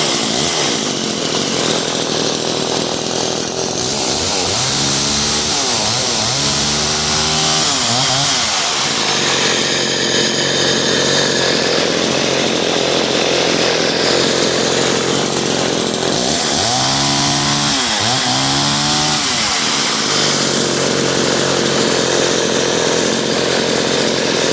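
Vintage Craftsman 3.7 18-inch chainsaw's two-stroke engine running just after starting. It is revved up and back down a few times about five seconds in and again about seventeen seconds in, and runs steadily in between, running out well.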